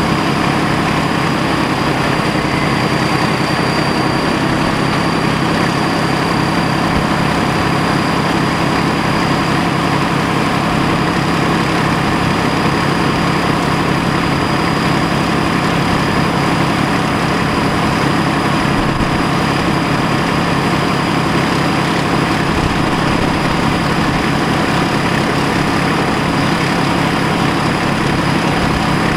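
Class 14 diesel-hydraulic locomotive's Paxman Ventura V6 engine running steadily as the locomotive travels along the line, heard from the cab window, with wheel and rail noise.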